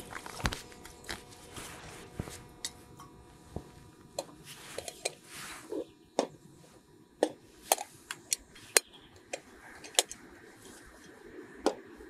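Metal parts of an aluminium stovetop espresso pot and a manual coffee grinder being handled and set down on a metal camping table. A dozen or so sharp clinks and knocks come at irregular intervals, several of the loudest in the second half.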